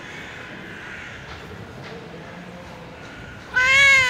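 Black-and-white tuxedo cat giving one short, loud meow near the end, its pitch rising slightly and then falling.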